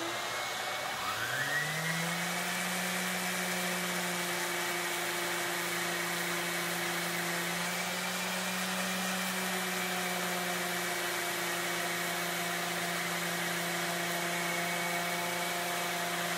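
Random orbital sander with 120-grit paper starting up, its motor rising to speed over the first second or two, then running steadily. It is sanding old felt-pad adhesive residue off the end grain of a wooden chair leg.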